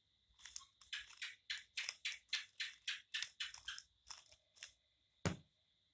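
Plastic Rubik's cube being turned layer by layer through an F2L algorithm. It makes a quick string of short scraping clicks, about three turns a second, then one sharper knock near the end.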